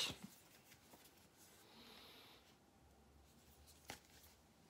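Near silence: faint room tone, with a brief faint rustle about two seconds in and a single soft click near the end.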